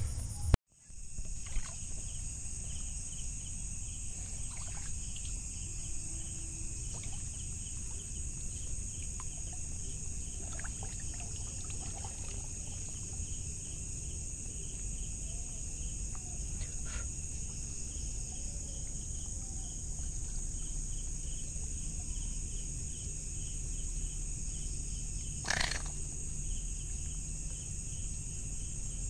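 Night chorus of crickets: a steady high-pitched drone with a faster pulsing chirp beneath it. There are a few faint clicks, and a brief louder crackle about 25 seconds in.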